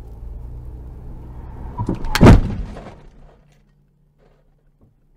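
Steady low car-cabin hum as recorded by a dash cam, then about two seconds in a sudden, very loud collision impact followed by a second of smaller knocks and clatter. The sound then drops almost to silence.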